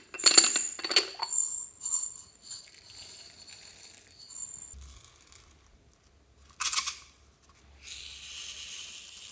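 Small beads rattling and clinking as they are shaken and poured out of a lemon-shaped container, loudest in the first second and trailing off. A short rattle comes just before the two-thirds mark. Near the end there is a steady hiss as sprinkles are poured from a second container.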